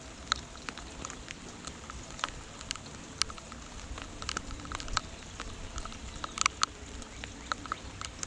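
Rain dripping: irregular single drops striking a surface, over a steady soft hiss of rainfall, with a quick flurry of louder drops about six and a half seconds in.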